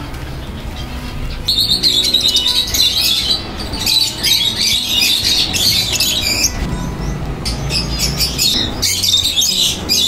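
A crowd of caged lovebirds and finches chattering and squawking: dense, overlapping shrill calls that swell up about a second and a half in and keep going.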